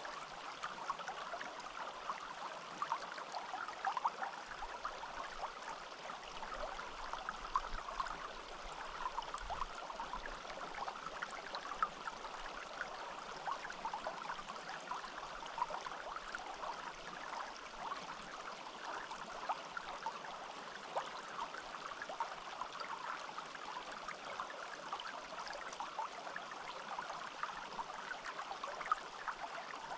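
A small forest stream running and babbling over stones, a steady wash of water with many small quick splashes and gurgles.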